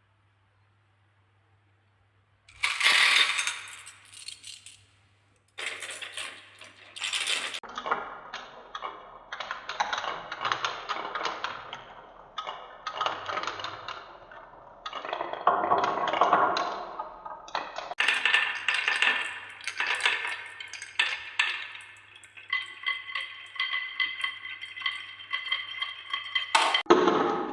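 Marbles rolling and clattering down a wooden marble run, a dense run of irregular clicks and knocks that starts after a couple of seconds of near silence. A steady ringing tone joins in near the end.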